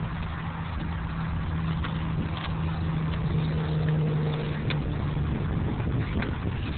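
A motor vehicle's engine running steadily, a low hum that stops about five seconds in, over a constant low rumble.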